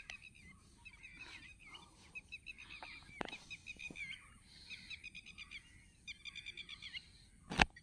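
Birds calling: repeated short chirps that rise and fall, then two fast trilled runs about five and six seconds in. A sharp click about three seconds in and a louder knock near the end.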